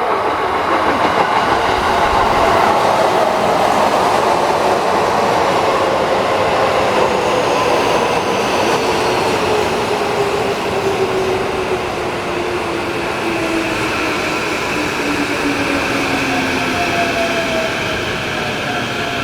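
Tokyo Metro 15000 series electric train pulling into a station platform: wheels rumbling on the rails, with the whine of its traction motors gliding steadily down in pitch as it brakes.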